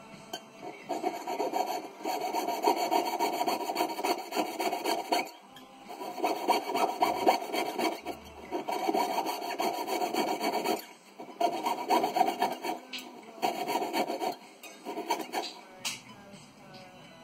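Jeweller's piercing saw cutting through a platinum ring to open the back holes of a stone setting: quick, even back-and-forth strokes in runs of a few seconds, with short pauses between them.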